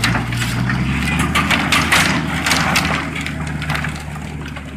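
A stack of wooden roof trusses sliding off a flatbed trailer and collapsing onto the ground: a clatter of cracking, knocking wood that thins out after about three seconds. Under it, the hauling truck's engine runs steadily.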